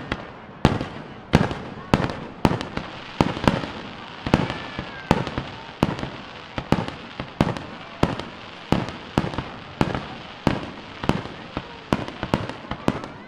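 Aerial fireworks display: shells bursting in a rapid, irregular series of sharp bangs, about two a second.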